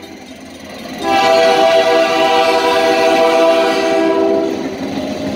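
A Quebec Gatineau Railway diesel locomotive's air horn sounding one long, steady blast for the level crossing, starting about a second in. As it stops near the end, the noise of the locomotive rolling over the crossing rises.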